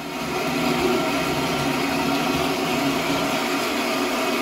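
Steady whirring hum of a small motor, unchanging throughout.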